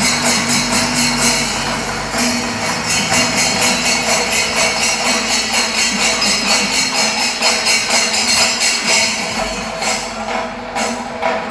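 Loud percussion music with rapid, evenly repeating metallic cymbal clashes keeping a fast rhythm.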